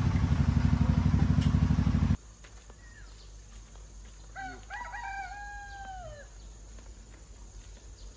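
A small engine runs with a fast, even pulse and cuts off abruptly about two seconds in. Then a rooster crows once, a long call that falls off at the end.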